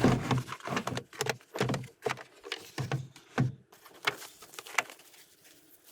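Metal truck-rack parts and bolts being handled: a run of irregular knocks and clinks that thins out near the end.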